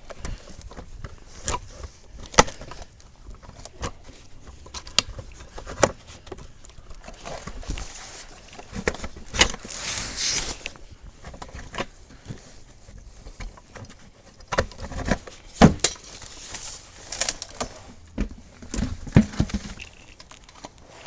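Scattered metallic clicks, clinks and knocks of tools and wheel parts being handled during a tire change, with a short burst of hissy noise about ten seconds in.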